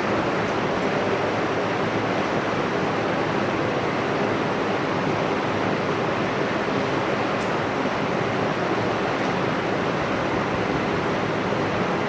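External vacuum pump of an OCA vacuum laminator running steadily, a constant noise with no change in level.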